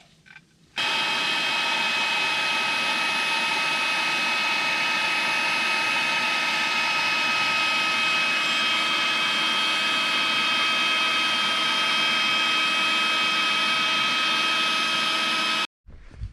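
A small electric air pump, likely inflating an air mattress, switches on abruptly about a second in and runs steadily with a rush of air and a constant whine, then cuts off suddenly near the end.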